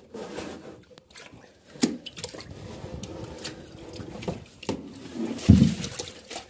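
Blue plastic feed basins being picked up and handled, giving scattered hollow knocks and scrapes, with one louder low thud about five and a half seconds in.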